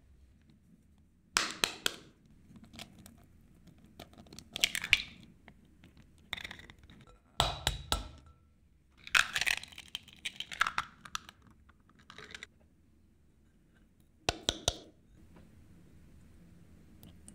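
Eggs being cracked over a glass mixing bowl: a string of separate sharp taps and crackles as the shells are knocked and pulled apart, with clinks of glass. The heaviest is a dull knock about halfway through.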